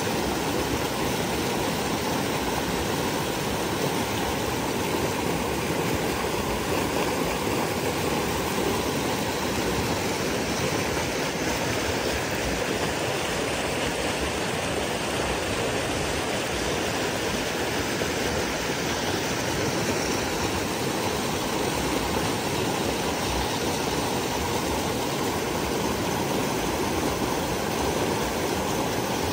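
Fast mountain stream rushing over rocks and small rapids, a steady whitewater rush.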